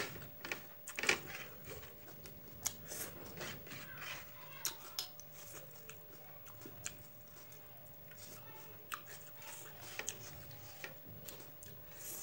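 Close-up mouth sounds of a person chewing a bite of beef curry wrapped in rice-flour bread: irregular wet smacks and soft clicks, the sharpest about a second in.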